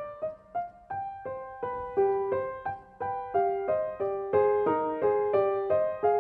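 Background music: a piano melody of single notes, about three a second, each struck and then fading.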